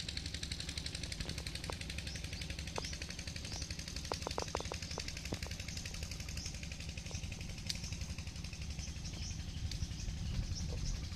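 An engine running steadily with a fast, even pulse. A few short clear tones come in the first half, and short high chirps are heard now and then.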